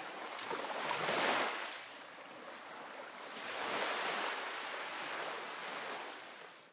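Surf-like rushing noise, an ocean-wave sound effect, swelling twice: once about a second in and again around four seconds. It dies away near the end.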